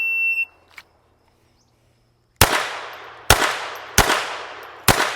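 Shot timer's start beep, one steady high tone lasting about half a second. About two seconds later come four pistol shots, each just under a second apart and each ringing out after the crack: the opening of a Bill Drill string fired from the holster.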